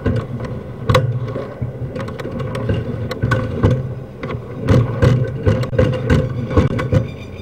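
An engine running steadily, with repeated sharp knocks and clicks over it, loudest about a second in and through the second half.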